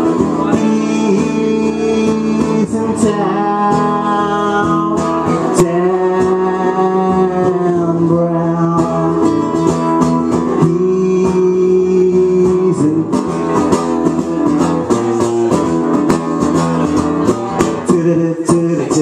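Instrumental break in a live song: guitar playing with held notes, some of them sliding in pitch, and no words sung.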